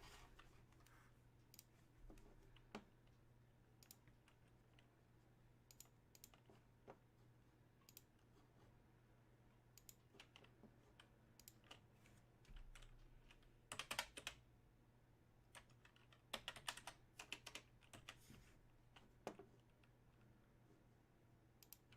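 Faint clicking of typing on a computer keyboard, in scattered bursts with a busier run past the middle, over a low steady hum.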